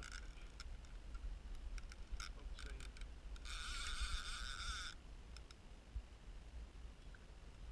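Fishing reel ticking with a few scattered clicks. About three and a half seconds in, the drag buzzes steadily for about a second and a half as a hooked lake trout pulls line off beside the boat.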